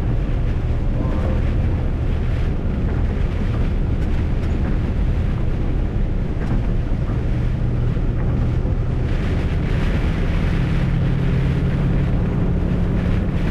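MAN truck's diesel engine running steadily, under a heavy hiss of wind and rain on the microphone. The hiss gets louder about nine seconds in.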